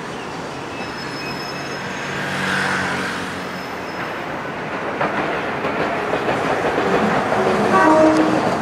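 Hiroshima Electric Railway streetcar running past on street track, with a steady rumble of wheels on rail. Near the end an electric motor whine steps through changing pitches as the sound peaks.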